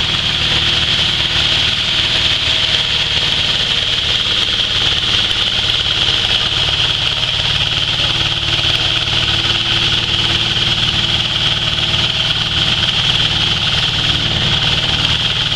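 Hammer mill running steadily, driven by its small engine, while grain is fed into the hopper and ground to flour. It makes a constant high-pitched whine over a low engine drone.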